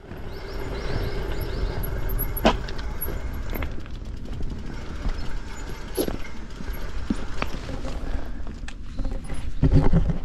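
Riding noise of a Kona Rove LTD gravel bike on 47 mm WTB Byway tyres: steady wind and tyre rumble on the action camera's microphone, with sharp knocks and rattles from the bike over bumps, a cluster of them loudest near the end.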